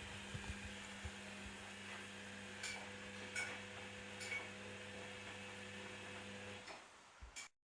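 Candy Activa washing machine running with a steady low hum, with a few light clicks and knocks from inside the machine. The hum stops about a second before the end, after which there are a couple of knocks.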